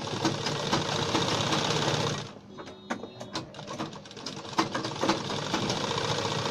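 Domestic sewing machine stitching a seam through lining fabric and buckram. It runs steadily for about two seconds, stops for a couple of seconds with a few clicks as the work is handled, then runs again from about four and a half seconds in.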